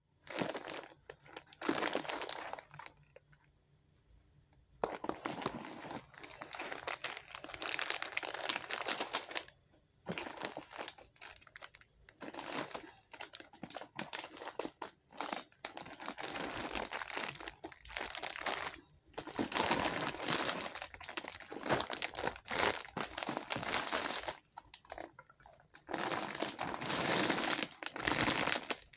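Plastic snack and candy wrappers crinkling and rustling as hands handle and unpack them, in irregular bursts with a couple of short pauses.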